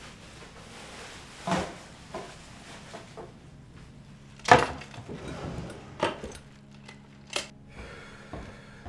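Knocks and clatter of household objects being handled and set down on wooden furniture, four or so separate hits with the loudest, a sharp knock, about halfway through.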